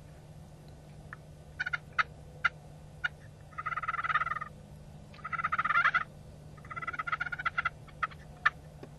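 Eastern wild turkey gobblers gobbling: three rattling gobbles of about a second each, one after another. Several short, sharp single notes come before and after them.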